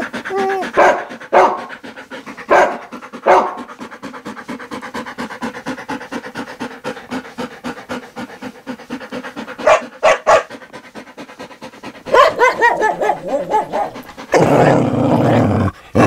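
Dog panting quickly and rhythmically, broken by a few short sharp barks. Near the end come wavering whimpering cries, then a louder rough burst.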